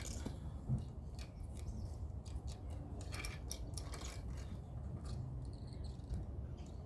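Scattered short clicks and crunches over a low steady rumble, thickest around the middle.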